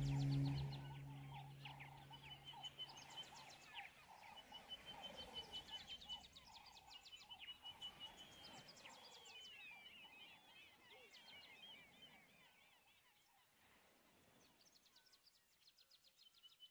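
Background music fades out in the first seconds, leaving faint animal calls: repeated series of rapid chirps and trills with warbling calls between them, thinning out near the end.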